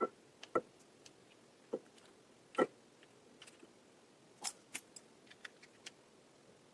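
Lipstick tubes and caps clicking and tapping as they are handled: about a dozen short, sharp clicks at uneven intervals, the loudest about two and a half seconds in, with a quick run of lighter ticks near the end.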